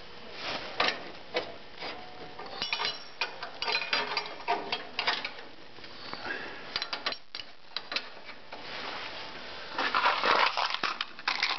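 Steel roller chain and sprocket on a snowthrower's shaft clinking and rattling as the chain is worked into place by hand: irregular sharp metal clicks, with a louder, denser run near the end.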